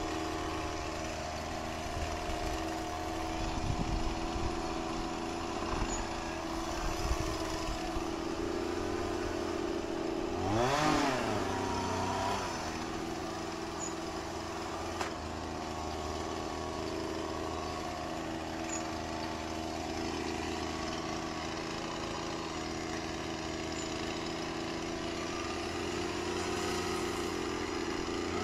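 Chainsaw engine idling steadily, revved up briefly about ten seconds in.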